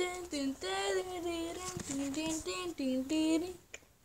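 A child singing a quick tune in short, steady notes on a nonsense syllable, the pitch stepping up and down from note to note, breaking off near the end.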